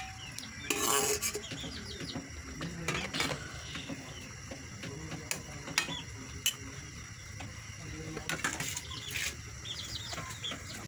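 A spatula stirring vegetables in a metal wok, knocking and scraping against the pan in scattered clicks and clangs, with a busier cluster about a second in and again near the end.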